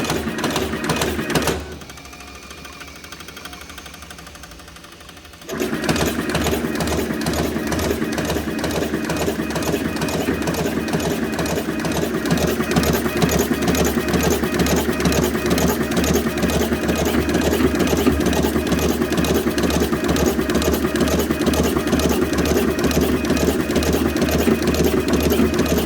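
Production machine running with a fast, even mechanical clatter. About a second and a half in it drops to a quiet hum for about four seconds, then starts again and runs steadily.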